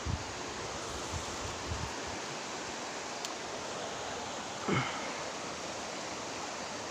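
River water rushing steadily, an even hiss. A few soft low knocks come in the first two seconds, and a brief falling vocal sound comes about two-thirds through.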